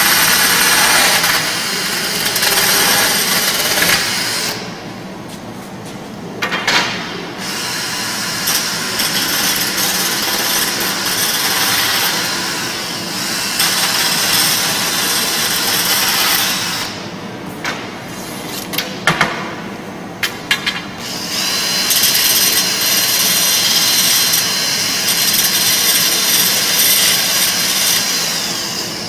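Hand-held power drill running in long stretches, drilling into a long tube clamped in a vise. It stops twice, about five seconds in and again past the middle, with a few knocks in the pauses.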